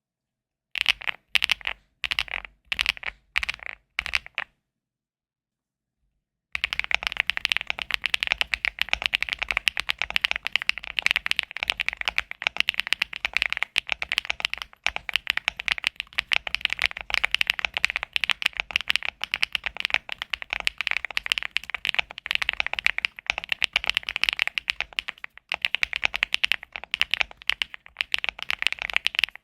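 Typing on a mechanical keyboard with HMX Violet switches. A few separate groups of keystrokes are followed by a pause of about two seconds, then fast, continuous typing.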